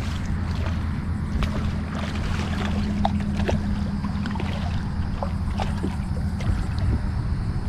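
A hooked redfish splashing and thrashing at the surface beside a kayak, many small irregular splashes and water droplets, over a steady low rumble.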